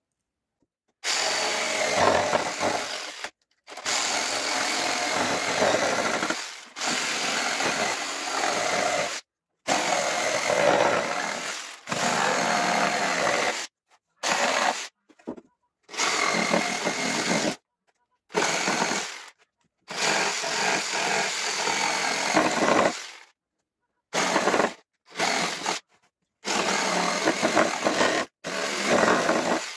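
Handheld electric power saw cutting wooden boards, running in runs of one to three seconds that start and stop abruptly.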